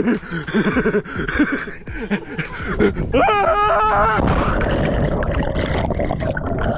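A man's yell as he jumps off a boat, cut off about four seconds in by the splash of him hitting the lake water. It is followed by a steady muffled rush of water and bubbles as the GoPro he is holding goes under.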